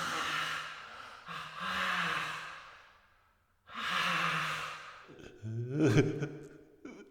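A man crying: three long, shaky, breathy sobbing exhales, then a short voiced wailing sob about two-thirds of the way through.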